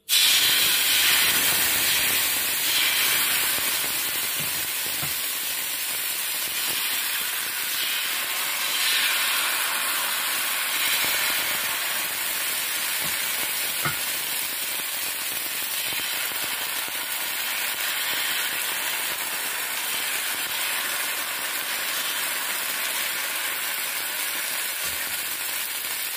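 Ragi rava dosa batter sizzling steadily on a hot oiled nonstick tawa, loudest in the first few seconds as the batter is poured onto the pan, then settling as the thin crepe sets full of holes.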